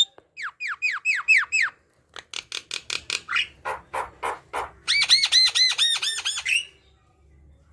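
Javan myna singing a loud, varied chattering song: a run of about six quick falling whistles, then a fast string of sharp clicking notes, then a rapid rippling series of arched notes that stops about a second before the end.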